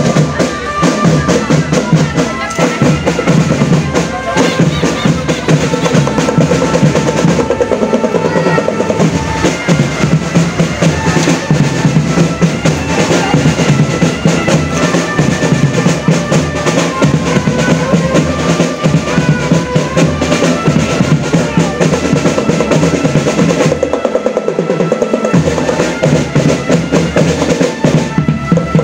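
Marching drum band playing: snare and bass drums keep a steady, busy beat with rolls, under a melody of held notes. The playing is loud and continuous throughout.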